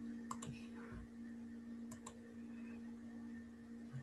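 Faint clicks of computer keys, a few near the start and a couple about two seconds in, over a steady low hum.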